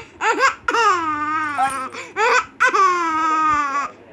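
A baby with the hiccups laughing in high-pitched squeals: a few short squeaks and two long squeals, each falling in pitch.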